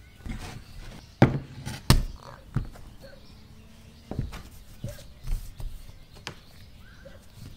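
Knocks and dull thuds of a bamboo bowl and a metal bench scraper on a tabletop as bread dough is turned out and cut into pieces: two loud knocks a little over a second in, then several lighter ones.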